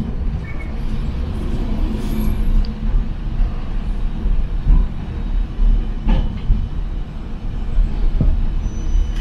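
Hiroshima Electric Railway 700-series tram running along street track, heard from inside the car: a steady low rumble of motors and wheels, with a few sharp clicks about two, six and eight seconds in.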